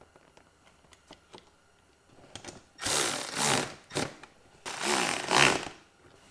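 Metal parts of a homemade aluminium snowmobile tunnel-bag rack being handled and adjusted: a few light clicks, then two loud, rough bursts about a second each with a sharp knock between them.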